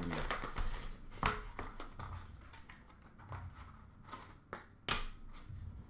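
Hands opening a cardboard trading-card box: the box and its packing rustle, with a few sharp clicks, about a second in and twice near the end.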